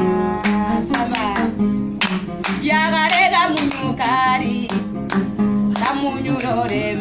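Acoustic guitar played with a woman singing and hands clapping along to the beat. Her singing comes in about two and a half seconds in, over the guitar and claps.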